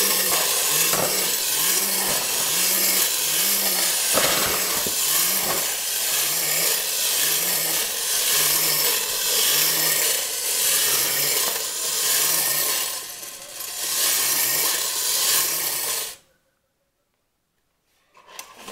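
Clockwork motor of a tin wind-up robot dog toy running down as it walks, with a continuous grinding rasp from its spark-making mechanism and a low knock of its waddling gait about twice a second. The sound stops abruptly about sixteen seconds in.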